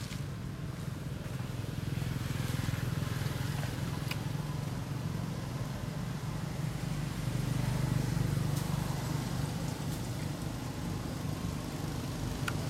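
Steady low drone of a running engine, with a few faint clicks.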